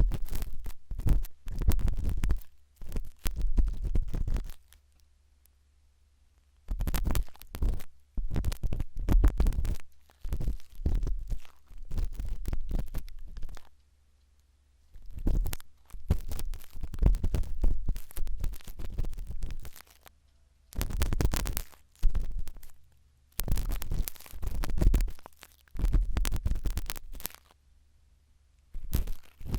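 Sharp toothpick scraping and digging in an ear close on the microphone, with scratchy crackles over a low rumble. It comes in stretches of a few seconds separated by short pauses.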